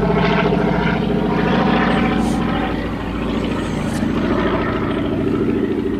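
Honey bees buzzing loudly around an open hive: a dense, steady, wavering drone of many wings close to the microphone. There is a light knock about four seconds in.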